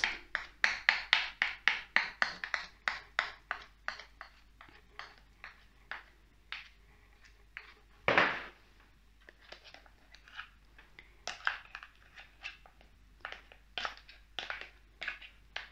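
A metal spoon tapping and scraping thick chocolate mousse off the head of a stick blender: a quick run of sharp clicks, about three a second, that thins out after about four seconds, with one longer scrape around eight seconds in.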